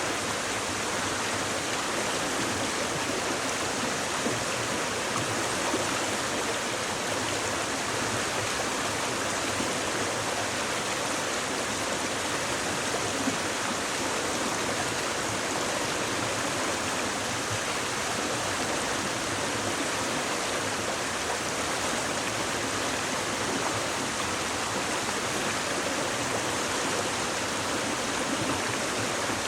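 Shallow stream babbling over stones, a steady, even rush of flowing water.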